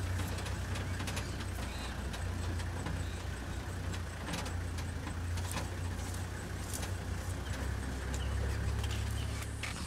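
Land Rover safari vehicle's engine idling, a steady low rumble, with a few faint clicks.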